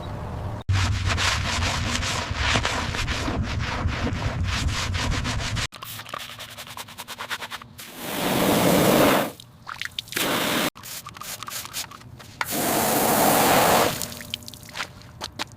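Sanding on a car body: rough rubbing strokes in several short clips cut one after another, with stretches of louder hissing scrubbing.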